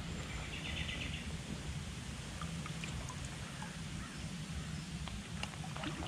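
Shallow river water stirred and dripping as a clay pipe is fished off the bottom with a reach-grabber: faint small splashes and ticks over a steady low rumble, with a faint bird call near the start.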